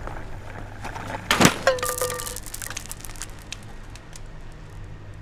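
A loud clatter about a second and a half in as a box of bead packets hits the pavement, followed by a short held tone and a quick run of small clicks as loose beads scatter and bounce across the ground.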